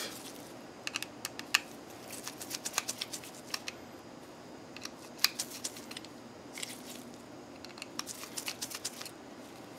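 Small Phillips screwdriver turning out two tiny Phillips head screws from a security camera's housing, with light handling of the parts: scattered faint clicks and scrapes in loose clusters.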